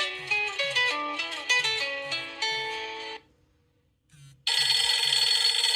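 Nokia 6212 classic playing a guitar-like melodic ringtone of plucked notes through its speaker; it stops about three seconds in. After a short pause a different, brighter and denser ringtone starts near the end.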